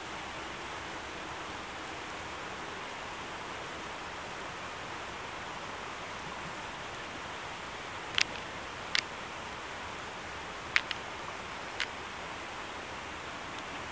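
Steady rain falling, an even hiss, with four sharp taps in the second half.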